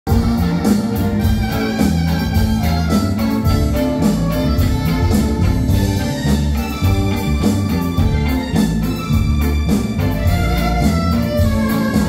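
Live band playing a song's instrumental introduction: drum kit, electric guitars and keyboard with an organ-like sound, at a steady beat.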